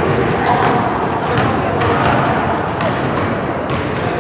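Reverberant gym ambience: sneakers squeaking briefly and footsteps and knocks thudding on a hardwood basketball court, over a steady wash of indistinct voices.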